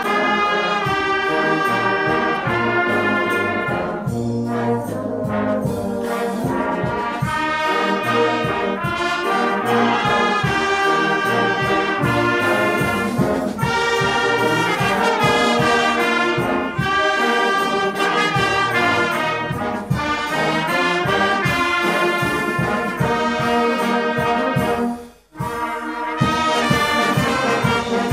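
Church brass band of trumpets, trombones, tubas, saxophones and clarinets playing a Romanian Christian Christmas carol (colindă) in full harmony. Near the end the band stops for a moment, then comes back in.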